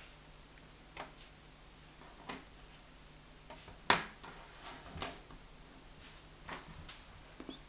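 Flat, ironed Perler bead pieces being set down and slid on a wooden tabletop: about six light plastic clicks and taps, with one sharper clack about four seconds in.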